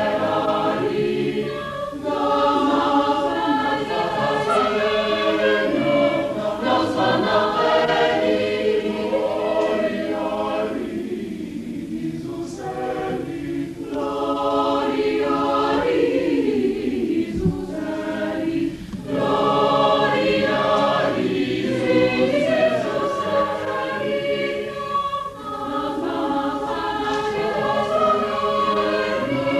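Large mixed choir of men's and women's voices singing in parts, a little softer in the middle.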